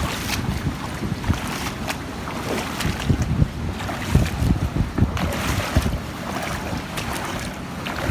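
People wading through floodwater, the water sloshing around their legs with each step, while wind buffets the phone's microphone in low, uneven rumbles.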